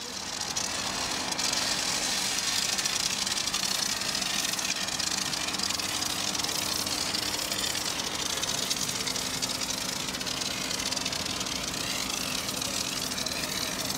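High-pressure washer jet hissing steadily as the lance sprays water across a truck cab's foamed paintwork, with a steady low hum underneath.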